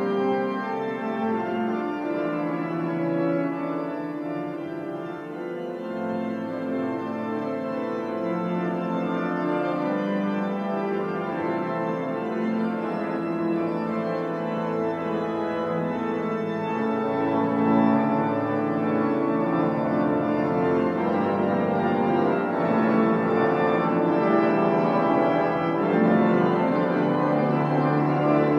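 Church pipe organ playing: long held bass notes under chords and moving upper parts.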